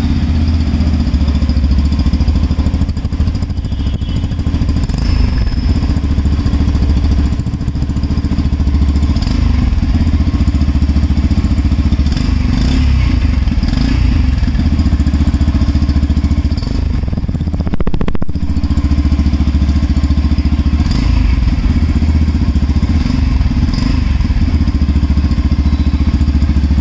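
Yamaha FZ-X's 149 cc single-cylinder, air-cooled engine idling steadily, heard close at the exhaust muffler just after being started.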